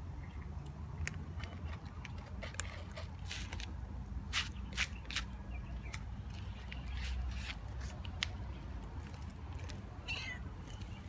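Scattered sharp clicks and crackles over a low rumble, with a short cat meow near the end.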